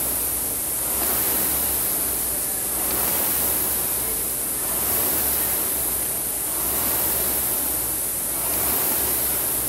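Indoor rowing machine's air flywheel whooshing steadily. The rush swells and eases about every two seconds with each rowing stroke.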